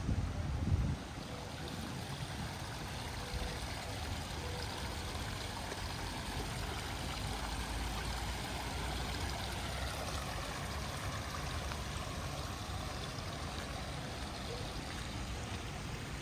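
Water running steadily with a continuous rushing hiss. Wind buffets the microphone with a low rumble for about the first second, then stops.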